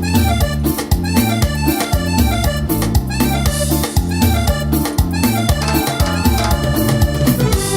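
Instrumental cumbia break played by a live band: a fast accordion lead over a steady drum kit and bass beat.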